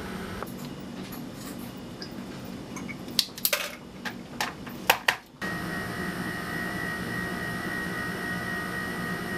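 Lab bench noise: a handful of sharp clicks and light taps in the middle, as a micropipette is worked. From about five and a half seconds in, a steady machine hum with a thin high whine takes over.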